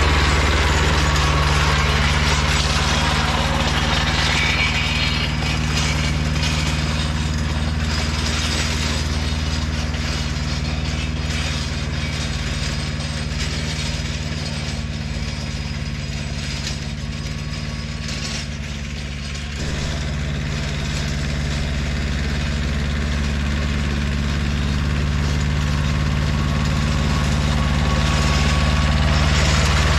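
An engine running steadily at constant speed, easing slightly a little past halfway and picking up again.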